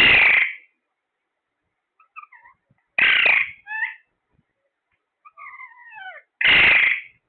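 A parrot calling: three loud, harsh screeches about three seconds apart, with softer chirps and falling whistles in between.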